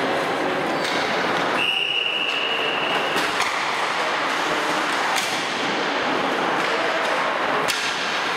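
Ice hockey practice on a rink: about four sharp cracks of pucks and sticks striking, over a steady hiss of arena noise. A whistle sounds for about a second and a half near the start.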